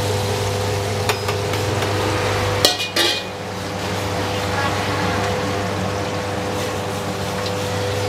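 Chicken karaage deep-frying in a wok of hot oil over a gas burner: a steady sizzle under a steady hum, with a quick cluster of metal clanks from a wire strainer and ladle against the wok about two and a half seconds in, and a few lighter clicks.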